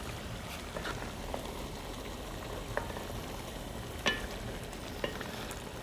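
Curry chicken simmering in a cast iron pot, a steady low sizzle, with a few light clicks scattered through it.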